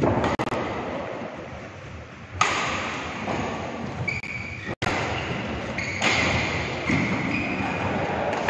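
Badminton rally: rackets strike the shuttlecock with sharp hits, and shoes squeak briefly on the court mat several times.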